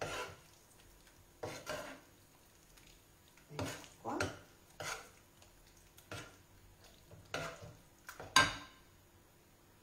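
A utensil scraping and knocking in a frying pan as creamy potato gnocchi are stirred off the heat. The strokes come irregularly, about nine of them, and the sharpest knock is near the end.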